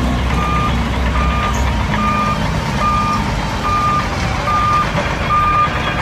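Dump truck's back-up alarm beeping steadily, a single-pitched beep a little more than once a second, over the low running of truck engines as the loaded tipper bodies are raised.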